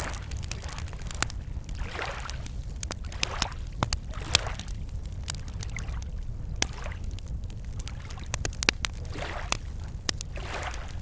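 Wood campfire crackling, with sharp pops scattered throughout and one louder pop about four seconds in. Small lake waves lap against the shore every second or two underneath.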